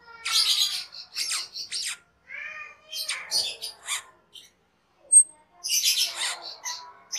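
Asian glossy starling singing a chattering song of harsh, squawky notes mixed with short whistles, in three bursts with a single sharp high pip between the second and third.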